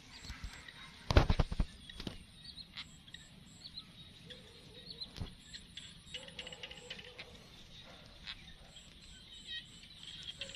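Quiet ambience with a quick run of five or six knocks or taps about a second in, the loudest thing here, then scattered faint clicks and short high chirps.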